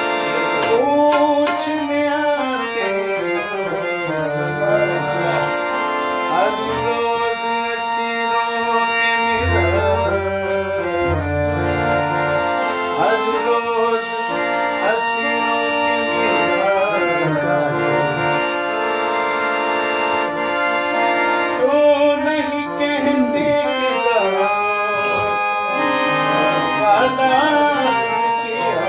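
Harmonium playing a held melody over a tabla rhythm, with deep bass-drum strokes, as the accompaniment of a Punjabi ghazal; a man's voice sings drawn-out, gliding phrases at times.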